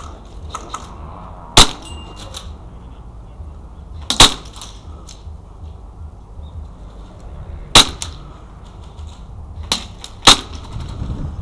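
Gas-blowback airsoft pistol, a Glock 17 Gen5 MOS replica, firing single shots a few seconds apart. There are four loud sharp cracks and a few fainter pops and clicks between them.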